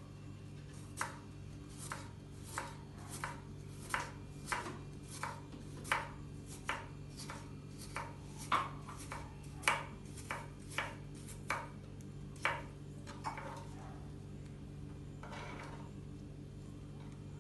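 Kitchen knife chopping vegetables on a wooden cutting board: a run of sharp strokes, about one to two a second, stopping about thirteen seconds in.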